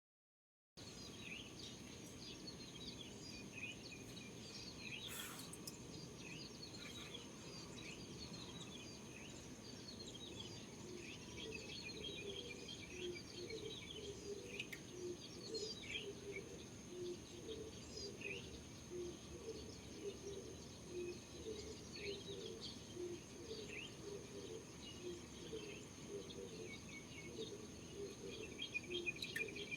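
Morning chorus of birds: many short chirps and tweets overlapping, over a steady high tone. From about halfway, a lower call repeats about once a second.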